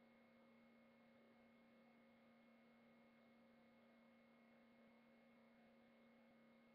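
Near silence: a faint, steady electrical hum with a few constant tones and low hiss.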